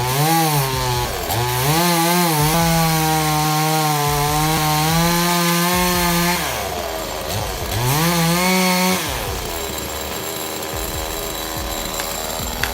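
Parker PCS 6200's 62 cc two-stroke chainsaw engine revving high while cutting wood. Its pitch drops about six seconds in, rises again briefly near eight seconds, then settles into a lower, steady run.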